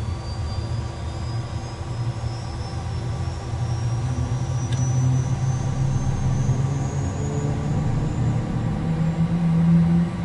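Number one turbofan engine of a business jet spooling up just after ignition during its start, heard from inside the cockpit. A thin high whine rises slowly in pitch over a low rumble that grows louder, with a stronger low hum near the end.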